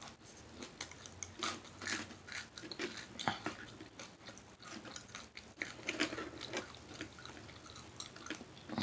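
A person chewing shrimp salad with the mouth close to the microphone: wet smacking and soft irregular clicks, several per second, with pauses between them.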